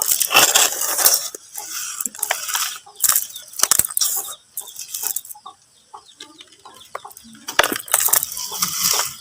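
Dry mud crumbling and crunching in irregular crackly bursts and sharp snaps, quieter for a stretch a little past the middle, then louder again near the end.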